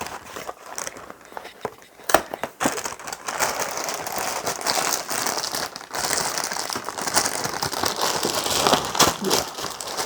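A new cereal box being opened: a few sharp snaps of cardboard at first, then the plastic liner bag crinkling steadily as it is pulled and torn open.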